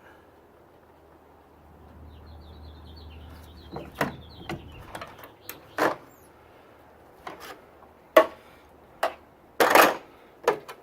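Sharp metallic clinks and knocks of hand tools and parts being handled during engine work, irregular and growing louder toward the end, with one longer rattle near the end.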